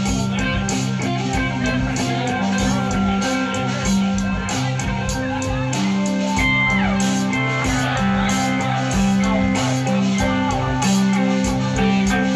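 Live rock band playing: electric guitars over bass notes and a steady beat. About six seconds in, one guitar note slides down in pitch.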